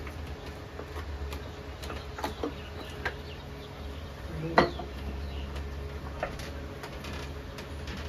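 A few light clicks and knocks from hands handling the plastic chassis and pipework of a split air conditioner's opened indoor unit, the loudest about halfway through, over a steady low hum.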